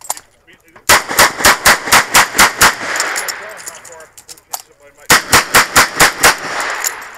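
Smith & Wesson 929 9mm revolver fired in two fast strings, about four shots a second: about eight shots, a pause of about two seconds while the revolver is reloaded, then about seven more, each string leaving a ringing echo.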